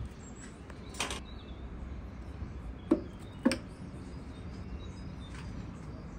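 Two sharp knocks about half a second apart, the loudest sounds, after a brief scrape or rustle about a second in, with a faint click later, over a low steady hum: hard objects being handled and set down.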